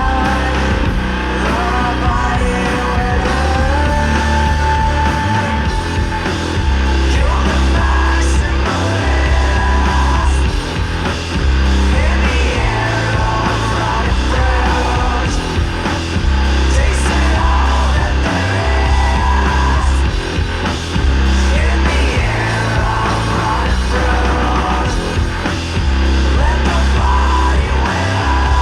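Doom and sludge metal: loud, dense distorted music with a heavy low end, held in long chords that change every second or two.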